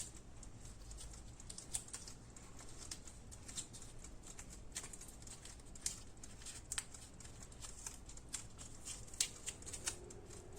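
Faint, scattered small clicks and crackles of electrical tape being wrapped around a thin wire by hand. A faint steady hum comes in near the end.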